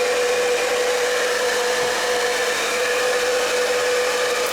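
Agaro HD 1150 Turbo Pro AC-motor hair dryer running on its lowest fan and heat settings: a steady rush of air with a constant whine.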